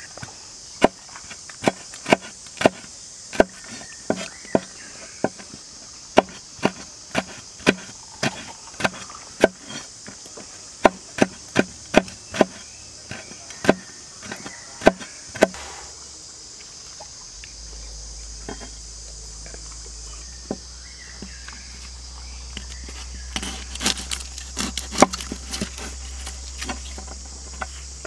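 Cleaver knife slicing red chili peppers on a wooden cutting board: sharp knocks about two a second, stopping about halfway through, then a quicker run of chops near the end. A steady high chirring of insects underneath.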